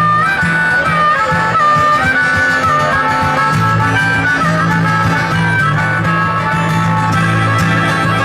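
A live blues harmonica solo played over strummed guitar accompaniment. The harmonica carries a bending melody line above steady chords.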